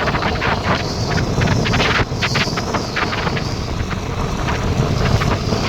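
Wind buffeting the microphone of a moving vehicle, a continuous gusting rumble with the vehicle's running noise underneath.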